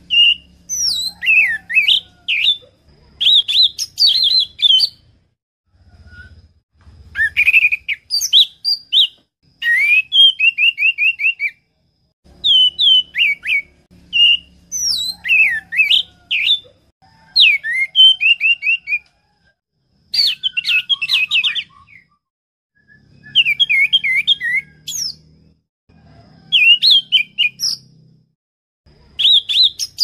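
Orange-headed thrush (anis merah) singing: phrases of clear, quick whistled notes sliding up and down, some ending in a run of rapid repeated notes, with short pauses between phrases.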